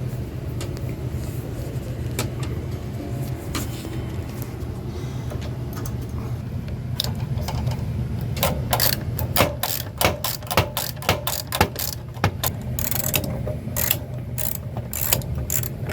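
Metal clicks and clinks from hand tools and fasteners as the burner access cover of a gas water heater is taken off. A few clicks come early, then a quick run of them from about halfway on, over a steady low hum.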